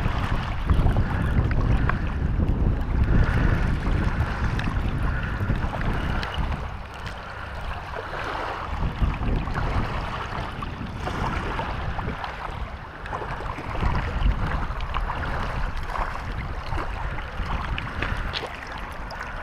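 Wind buffeting the microphone over small waves lapping on a stony shore; the wind rumble is heaviest in the first six seconds, then eases.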